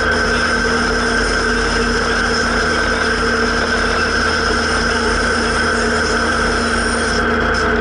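Zetor 7340 tractor's four-cylinder diesel engine running steadily at a constant speed under way, heard from inside the cab.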